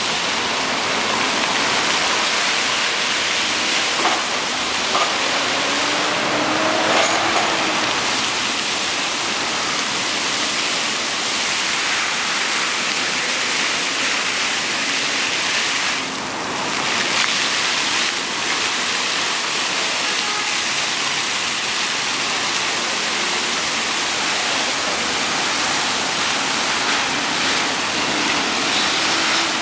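Water fountain jets splashing steadily, a continuous rush of falling water, dipping briefly about halfway through.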